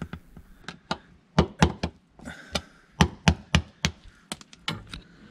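Hammer striking the handle of a flathead screwdriver wedged under a cut segment of a through-hull fitting's outer mushroom flange: about fifteen sharp knocks in quick, uneven runs. The segment is being bent back and forth until it breaks off the hull.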